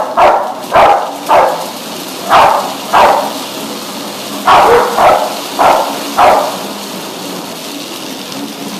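Rottweiler barking deeply while running on a slatmill, about nine barks in three quick groups over the first six seconds, over the steady clatter of the treadmill's slats.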